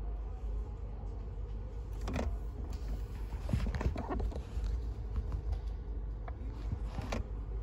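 Car idling, a steady low rumble heard from inside the cabin, with a few short knocks and rustles about two seconds in, around four seconds in and near the end.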